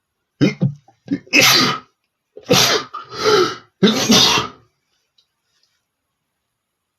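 A man sneezing several times in quick succession, big and small sneezes, all within the first four and a half seconds.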